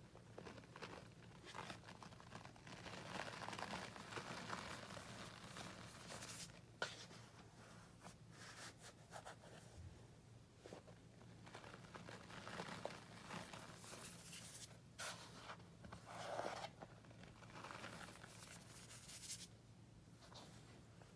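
Powdered scouring cleanser (Ajax and Comet) being crumbled and raked by hand in a plastic tub: faint, irregular soft crunching and rustling of packed powder breaking up, with scattered crisp clicks, the sharpest about seven seconds in.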